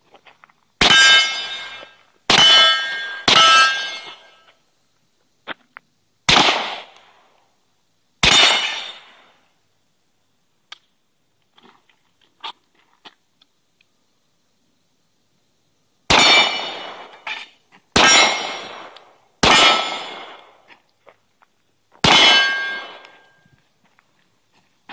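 Nine 9mm gunshots, each followed by the ring of steel targets that lasts about a second. Three come close together near the start, two more follow a few seconds later, and after a long pause come four more.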